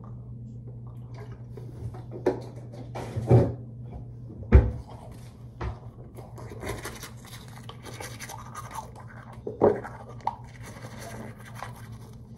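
Manual toothbrush scrubbing teeth, a fast scratchy brushing that fills the second half, over a steady low hum. A few knocks and bumps come in the first five seconds, the loudest about four and a half seconds in, and another near ten seconds.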